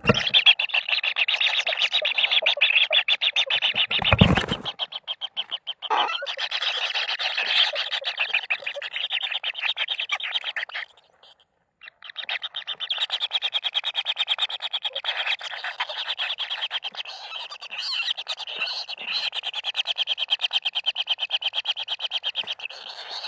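Kingfisher chicks calling together in a fast, buzzing churr of many pulses a second, the begging call of hungry nestlings. It breaks off for about a second midway, and there is one thump about four seconds in.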